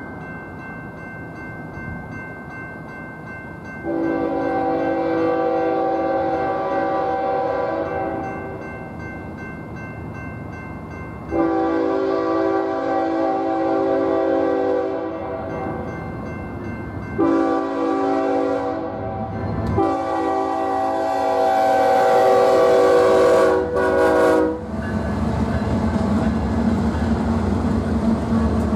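The crossing's GS Type 2 electronic bell rings steadily while the approaching BNSF freight train's locomotive horn sounds the grade-crossing signal: long, long, short, long. After the last blast, the lead diesel locomotives pass through the crossing with a loud low engine rumble.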